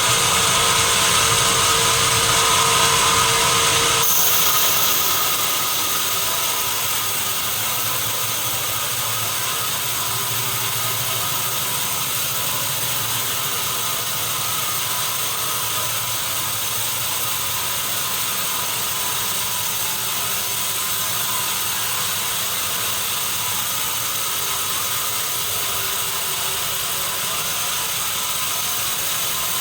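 Sawmill machinery running with a steady mechanical noise and a constant whine. It gets somewhat quieter and thinner in the low end about five seconds in.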